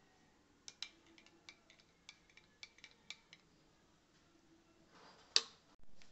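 Plastic spoon clicking and tapping against a glass tumbler of drink: a quick run of light clinks, then one louder knock about five seconds in.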